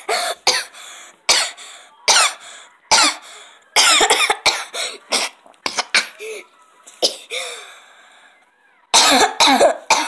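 A child making a rapid string of short, loud, cough-like vocal bursts, some with squeaky rising and falling pitch, with a brief pause about eight seconds in.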